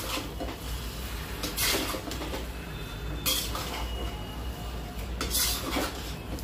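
Metal spatula scraping and stirring a thick potato and jackfruit masala in a kadhai: several separate metal-on-metal scrapes a second or two apart as the dry spices are worked into the frying vegetables.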